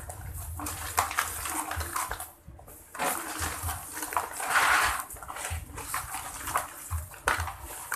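A hand mixing wet fishing groundbait of split boiled corn, crushed snails and roasted corn bran in a plastic basin: gritty rustling and scraping in repeated strokes, with a brief pause about two and a half seconds in.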